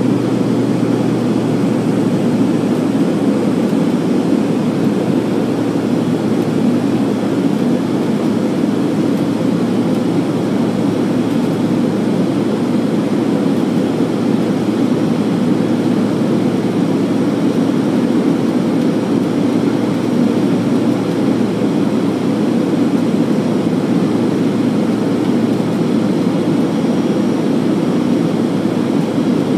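Steady cabin noise of a small airliner in flight after take-off: a loud, even rush of engine and airflow heard from a window seat, deep and unbroken.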